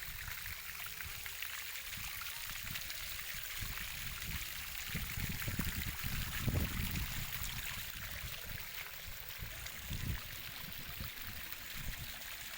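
Water from a broken pipeline pouring and splashing down a flight of steps, a steady rushing hiss. Irregular low thuds come and go over it, the strongest about six and a half seconds in.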